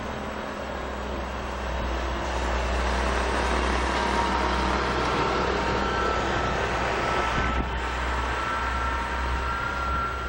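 Steady rumble of a distant vehicle with a faint high whine that grows stronger about halfway through.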